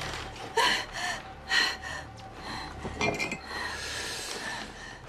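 Glass wine bottles clinking as one is handled and drawn from a floor rack, with a woman's sharp breaths a couple of times early on.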